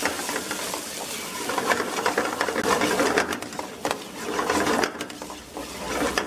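A metal utensil scraping and clattering rapidly against a large black iron pan as paneer cubes in thick gravy are stirred and tossed.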